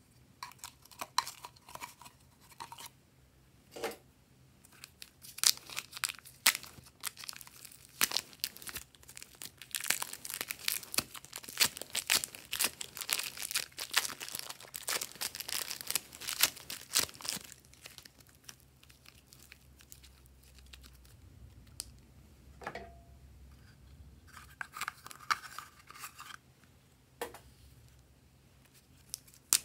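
Crinkling of clear plastic wrapping and soft tearing as soft clay is peeled from its packaging and pulled apart by hand. The crackling is dense for the first half, then sparse and quieter.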